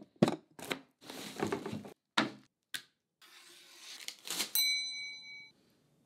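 A knife slitting and tearing open a cardboard box, with a few sharp clicks and a second of rough tearing. A rising sliding noise then ends in a sharp hit, followed by a ringing metallic tone that fades over about a second.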